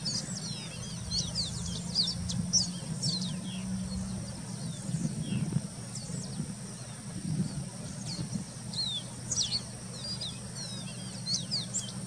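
Pearly-bellied seedeater (caboclinho-branco) singing in two bursts of quick, high, downward-slurred whistled notes, one at the start and another from about eight and a half seconds in.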